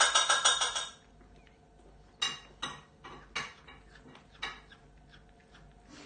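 Cutlery clinking against dishes: a quick clatter of clinks for about a second, then four single clinks spread over the next few seconds.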